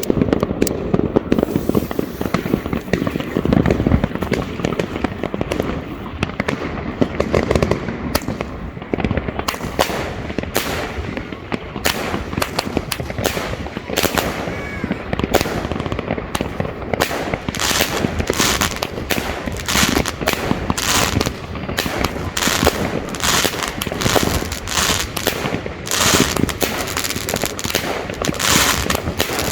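A consumer fireworks cake (battery of 20–30 mm tubes) firing shot after shot: launch thumps and aerial bursts in quick succession. The shots come more sharply and regularly, about two a second, in the second half.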